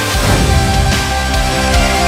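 Loud background music with a steady beat and held chords.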